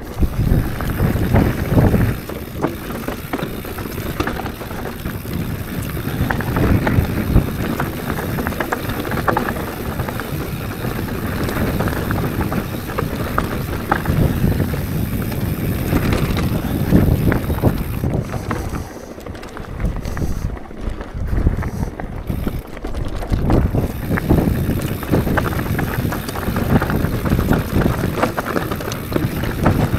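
Mountain bike ridden over a rough dirt trail: tyre rumble and constant clattering and rattling of the bike, with wind buffeting the microphone. It eases off for a few seconds about twenty seconds in.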